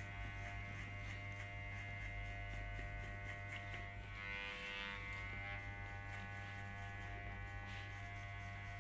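Electric hair clipper running with a steady buzz as it is worked over short hair on the side of the head.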